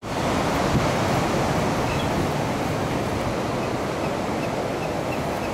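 Steady rushing noise of ocean surf, with wind on the microphone.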